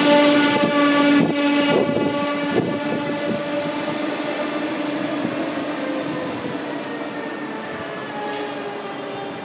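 Regional train of double-deck coaches with an electric locomotive running past. An electric whine slowly falls in pitch, with several wheel clacks over the rails about one to three seconds in.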